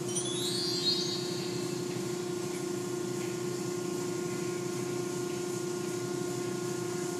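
Automatic car wash heard from inside the car: water and foam spraying over the body and windscreen, over a steady machine hum. A brief high gliding squeal sounds near the start.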